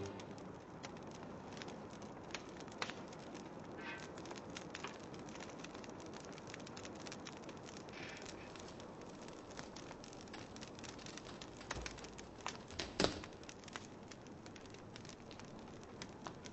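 Low steady hiss with faint crackling and scattered small clicks, and a sharper knock about 13 seconds in.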